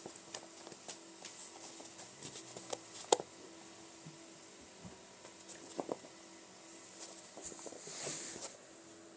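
Kitten playing on carpet with a fluffy boa toy: soft pattering, rustling and scattered light taps, with one sharp knock about three seconds in and a brief rustling swish near the end.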